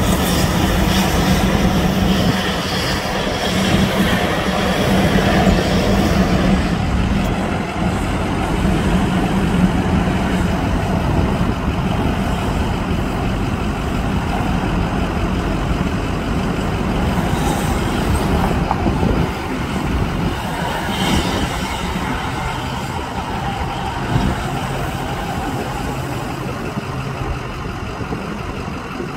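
Heavy truck and highway traffic noise: a steady diesel rumble with a low hum.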